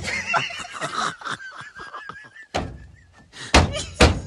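A memory foam pillow frozen hard in winter cold being struck against something: several knocks, ending with three loud, heavy thuds about half a second to a second apart.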